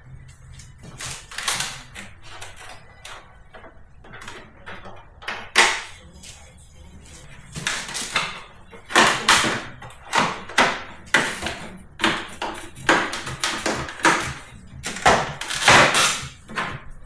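Irregular clicks, taps and knocks of hand tools and parts being handled while Phillips screws are undone on a scooter. They are sparse at first and come thick and louder in the second half.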